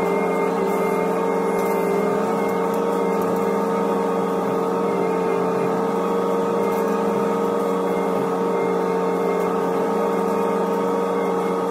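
Hitachi ZX125W wheeled excavator's diesel engine running at a steady speed, heard from inside the cab as an even, unchanging hum.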